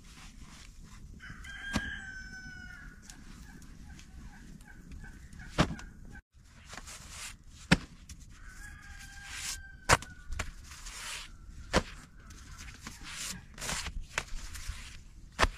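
A rooster crowing twice, about a second in and again about halfway through, over the dry rustle and sharp taps of thin baked flatbreads being lifted and stacked by hand.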